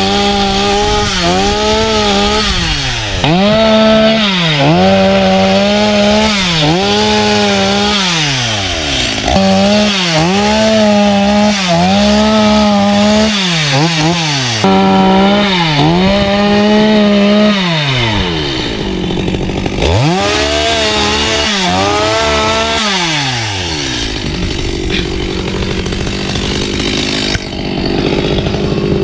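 Two-stroke chainsaw cutting through a log, its engine pitch repeatedly dropping as the chain bites into the wood and climbing back as the load eases, about once a second. Near the end it settles into steadier, lower running.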